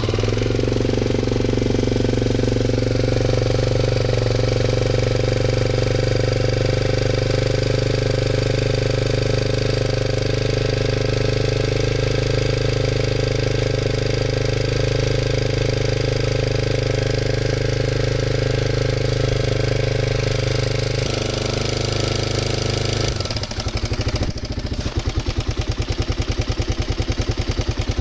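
Kawasaki D-Tracker's 250 cc single-cylinder four-stroke engine running with a clattering 'gachi-gachi' noise, which the owner tags as tappet noise and says has been getting worse. About 23 seconds in the engine note drops to a slower idle and a rapid, even ticking stands out.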